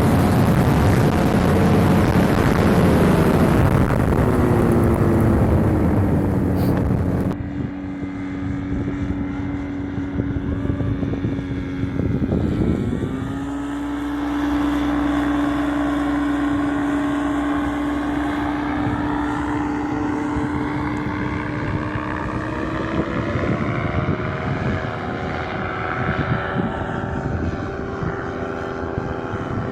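Paramotor engine and propeller running steadily under heavy wind noise, which stops abruptly about seven seconds in. The engine's pitch sags and recovers about halfway through, then rises a little near the end as the throttle changes.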